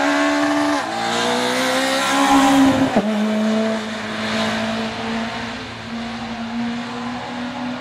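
Citroën C2 R2 Max rally car's 1.6-litre four-cylinder engine revving hard as the car passes. The revs climb, dip briefly about a second in, climb again and drop sharply on an upshift near 3 s. The engine then holds a steady note that fades as the car pulls away.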